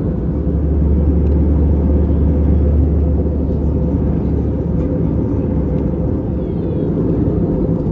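Steady low rumble inside the cabin of an Airbus A320 in flight, from its engines and the airflow, with a deeper hum that eases off about four seconds in.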